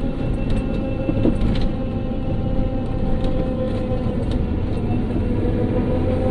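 A 1997 Volvo 850 AWD making a steady whirring whine over the car's low rumble. The whine dips slightly in pitch about five seconds in. It is a new noise the car has started making.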